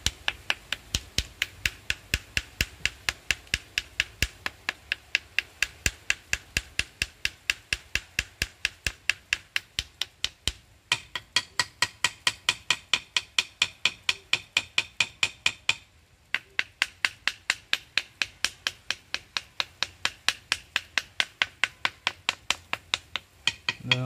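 Rapid, steady tapping with a knife on a wooden stingless bee hive box, about four knocks a second, with two brief breaks near the middle and about two-thirds through. The tapping is meant to drive the bees out of the hive entrance into a plastic bottle held over it.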